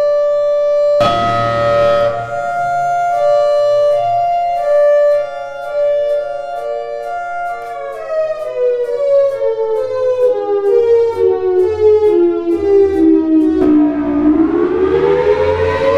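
Thunderbolt siren sounding a pulsed coded signal: a steady tone chopped into rapid regular pulses. About eight seconds in it winds down, its pitch falling steadily, then near the end it spins back up with a rising wail.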